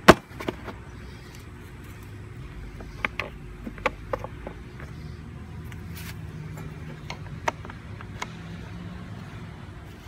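A sharp clack, the loudest sound here, then scattered light clicks and knocks from hands and parts working at a lawn mower's deck, over a low steady hum that is firmest in the second half.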